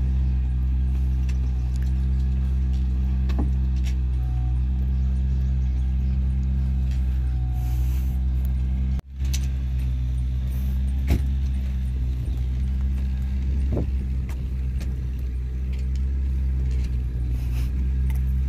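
Steady low motor hum, like an engine idling, with a short break about nine seconds in.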